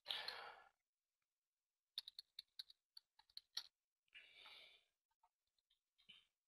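Faint computer-keyboard typing: a quick run of about a dozen keystrokes starting about two seconds in, a password being re-typed into a login dialog. A single click follows near the end.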